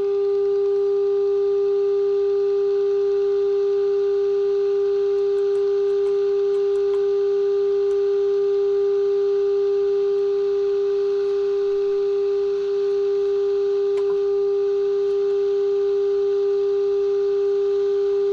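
Steady test tone from the signal generator's modulation, heard through the RCA 66X1 radio's speaker as the shortwave dial is tuned onto the 11.8 MHz signal. It is one unbroken mid-pitched tone with faint overtones, holding the same pitch and loudness throughout.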